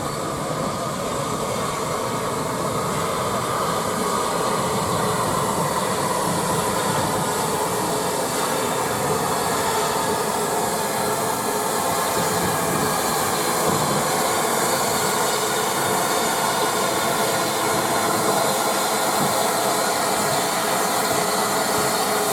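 Heritage railway train on the move: a steady rush of wheel and rail noise with some steam hiss, growing a little louder over the first few seconds and then holding.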